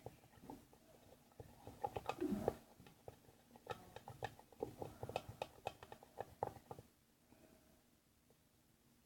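A pencil stirring hand soap and water in a small container, tapping and scraping against its sides in quick, irregular light clicks, with one brief louder noise about two seconds in. The clicking thins out after about seven seconds.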